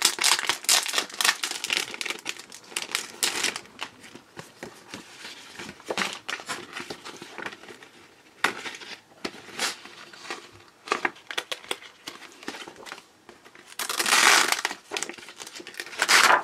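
Packaging crinkling and sheets of removable clings rustling as the pack is opened and the sheets are pulled out and handled. The sound comes in irregular crackles, with a louder stretch of rustling near the end.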